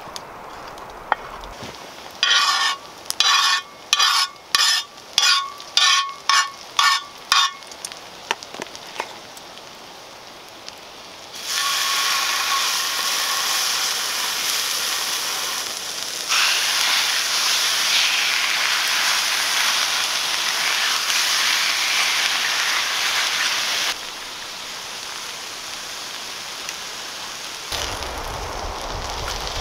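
A wooden spatula scrapes and stirs sliced red onions across a hot cast iron Dutch oven lid, about ten quick strokes at roughly two a second. About a third of the way in, steak starts sizzling loudly in oil on the cast iron, and the sizzle drops to a quieter level near the end.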